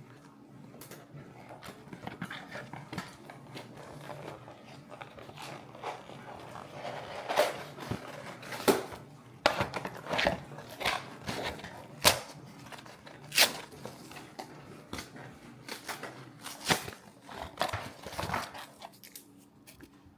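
A cardboard box of products being unpacked by hand: irregular rustling of packing material with many sharp taps and knocks as items are handled and set down.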